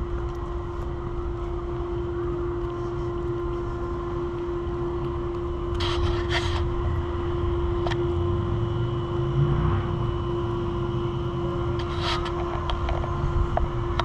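A steady, unbroken mechanical drone on one tone over a low rumble, with brief clattering sounds about six and twelve seconds in.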